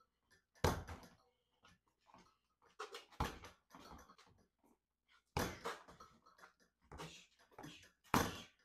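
Punches smacking an air-filled reflex ball mounted on springs (a home-made CobraBag with two springs), five sharp hits spaced one to two and a half seconds apart, with lighter knocks between them.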